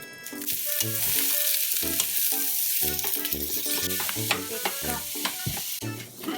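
Food sizzling and frying in a hot pan, a steady hiss that dies down near the end.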